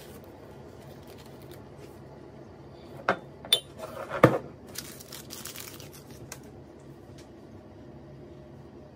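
Paper drip-bag coffee filter being opened and hooked onto a ceramic mug: paper rustling and crinkling, with a few sharp clicks around three seconds in and a knock of the mug against the steel counter just after four seconds, the loudest sound.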